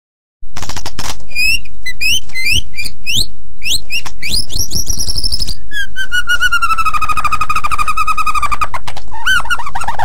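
White-rumped shama (murai batu) singing loudly: sharp clicks and quick rising whistled notes, then a long, fast run of repeated notes from about six to nine seconds in, then more varied whistles.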